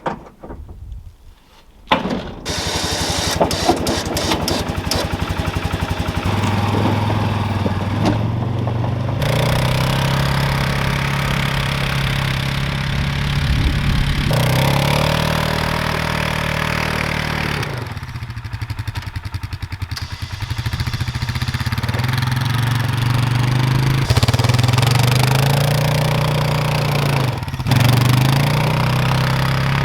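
Four-wheeler (ATV) engine starting about two seconds in, then running, its speed rising and falling again and again.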